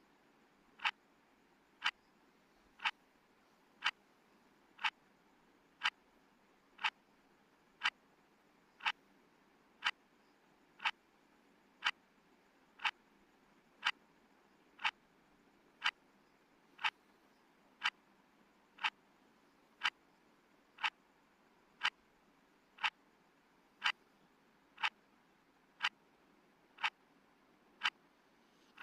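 Countdown timer's clock-tick sound: one short, sharp tick every second, perfectly regular, over a faint hiss.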